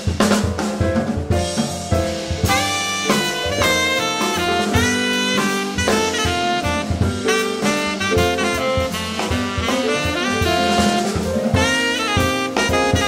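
Live jazz quartet playing: a tenor saxophone runs quick melodic lines over drum kit, piano and double bass.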